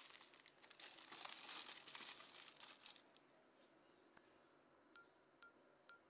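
Plastic shopping bag crinkling and rustling for about three seconds, then a few faint, evenly spaced pitched plinks near the end.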